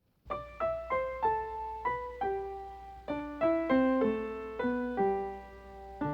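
Background music: a piano melody of single struck notes that ring and fade, with lower notes joining near the end.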